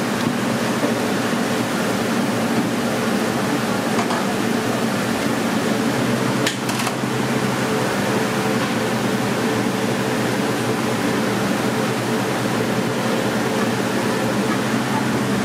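Commercial kitchen ventilation fan running: a steady drone with a low hum, and a brief click about six and a half seconds in.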